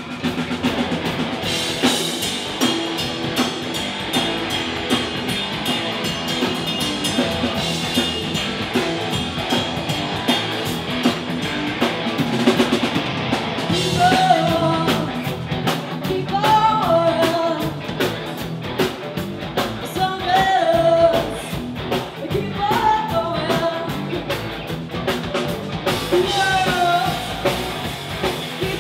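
Rock band playing: electric guitars and drum kit at a driving pace, with a female lead vocal coming in about halfway through.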